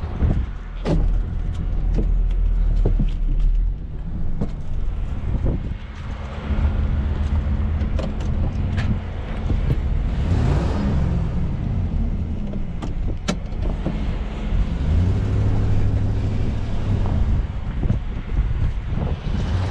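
Vehicle engine running, heard from inside the cab, its pitch rising and falling about halfway through, with scattered sharp clicks and knocks.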